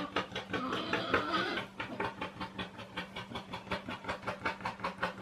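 Male warthog's courtship chant: a fast, even run of chugging grunts, about six a second, that sounds like a train. It is the boar's mating call as he chases a sow in the rut.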